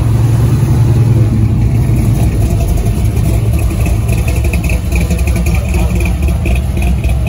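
Mid-1950s Chevrolet engines rumbling steadily at low speed as the cars roll past, first a sedan and then a station wagon with a side-exit exhaust. The loudest part is a deep exhaust rumble.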